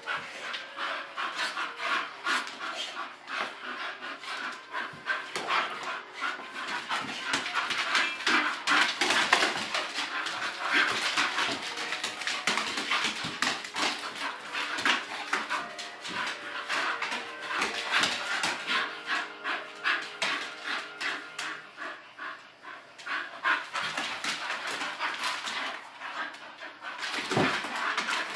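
English bull terriers play-wrestling, panting fast and hard, several breaths a second.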